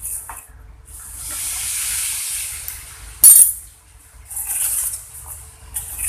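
Liquid pouring into a container for a couple of seconds, then a single sharp ringing clink like metal or glass being struck, followed by more brief pouring or stirring.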